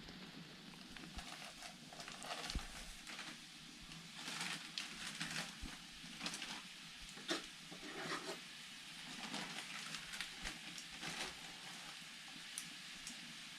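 Irregular scrapes and clicks of a cooking pot being stirred, busiest in the middle, over a faint steady hiss.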